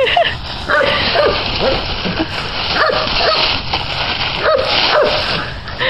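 Dry fallen leaves rustling and crunching as a cat burrows and moves through a deep leaf pile, with about ten short, high yips scattered through.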